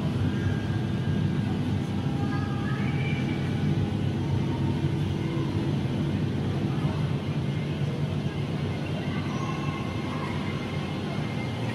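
A projection show's soundtrack playing through the hall's speakers as the show opens: a steady low rumble with faint held tones above it.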